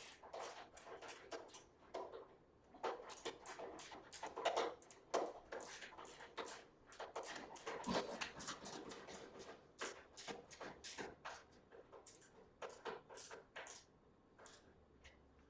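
Rapid, irregular metallic clicks, scrapes and rattles of hands working screws and a sheet-metal panel on an electric stove being put back together, with a few louder knocks along the way. The sounds thin out near the end.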